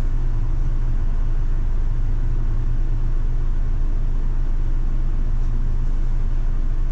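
City route bus heard from inside the cabin near the front: a steady low drone of engine and road noise with no change in pitch.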